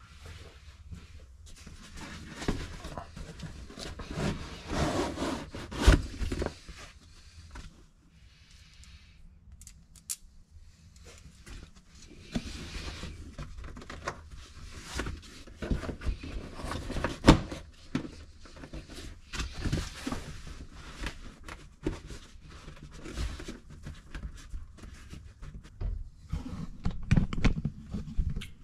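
Hands fitting a fabric storage bag between two UTV seats: rustling and scraping of the bag against the seats, with scattered knocks and clicks, two of them sharper and louder than the rest.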